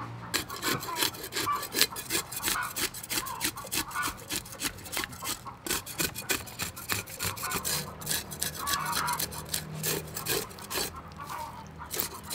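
Knife blade scraping the scales off a whole barracuda on a wooden chopping block: quick, rasping strokes, about four or five a second.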